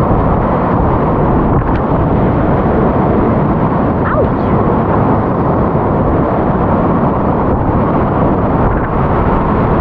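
Whitewater rapids rushing steadily and loudly close around a kayak, heard through a helmet-mounted camera's microphone.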